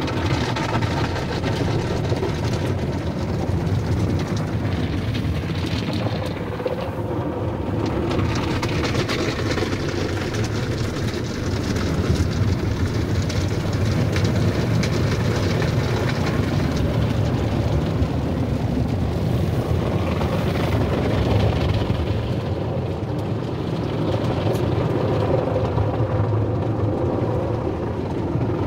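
Automatic tunnel car wash heard from inside the car: a steady rushing of water spray and foam on the body with the wash machinery running.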